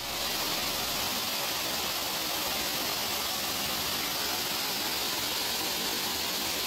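Waterfall rushing, a steady hiss that starts abruptly and holds even.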